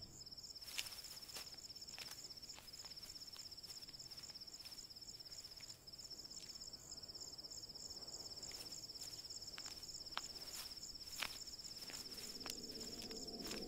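Faint night ambience of insects trilling, a steady, fast-pulsing high chirr, with a few soft clicks and rustles scattered through it.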